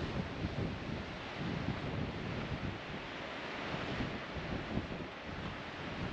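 Wind buffeting the microphone in irregular low gusts over a steady wash of ocean surf.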